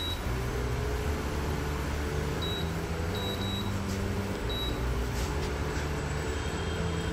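Induction cooktop running under a stainless steel pan as its oil heats: a steady low hum, with a few short high beeps from the touch panel.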